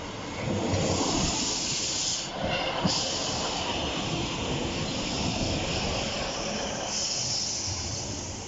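A train passing close by: a loud rushing noise of wheels on rail and moving air that builds about half a second in, dips briefly, and eases off near the end.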